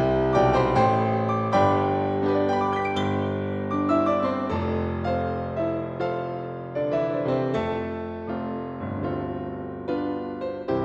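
Solo piano playing a slow, gentle piece: chords and melody notes over held bass notes, each note struck and left to fade.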